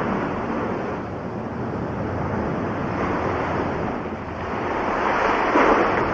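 Sea waves washing in, a rushing noise that swells to its loudest about five seconds in.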